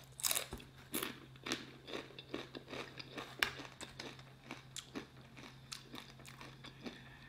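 Close-up crunching and chewing of a tortilla chip dipped in salsa: irregular sharp crunches, loudest in the first second and again about three and a half seconds in, then softer chewing. A faint steady low hum runs underneath.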